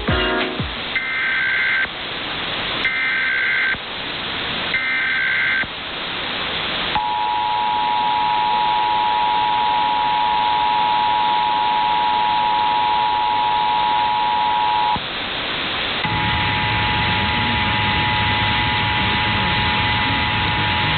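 Emergency Alert System national test over AM radio, under heavy hiss. Three short screeching bursts of the SAME digital data header come about a second apart, then the two-tone EAS attention signal sounds steadily for about eight seconds. The attention signal drops out for about a second and returns with audible distortion.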